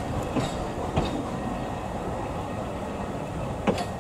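Narrow-gauge railway carriages rolling past on steel rails: a steady rumble with a few sharp clicks as the wheels cross rail joints.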